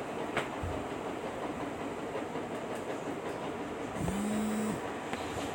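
Steady background noise with no speech, a single click just under half a second in, and a short tone that rises and holds for under a second about four seconds in.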